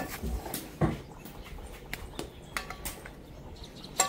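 Scattered short knocks and clicks with a few brief animal calls.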